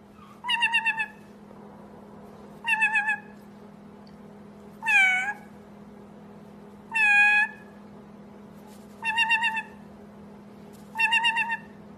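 White-bellied caique mimicking a cat's meow, six calls about two seconds apart. Four of them waver quickly and two slide down and back up like a real meow.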